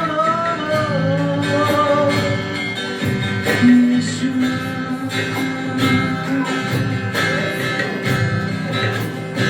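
Live worship band playing an instrumental passage between sung lines: strummed acoustic guitar over sustained chords with a steady beat.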